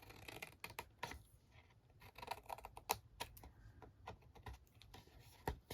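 Light, irregular clicks and taps of card stock and crafting tools being handled on a work surface.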